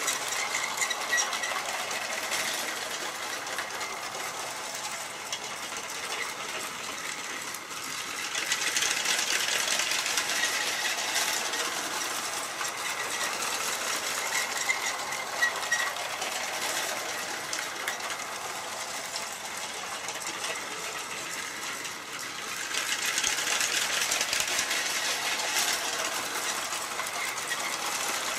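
Lego electric toy train running on its plastic track: a steady motor whir with wheels rattling and ticking over the rails. It gets louder twice for a few seconds, about a third of the way in and again near the end.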